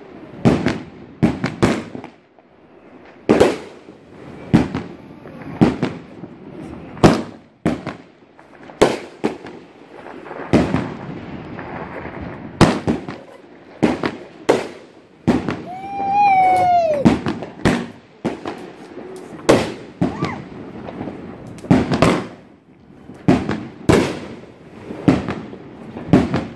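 Evil Clown 12-shot firework cake firing: a long run of sharp bangs, more than twenty of them at uneven gaps, often a second or less apart.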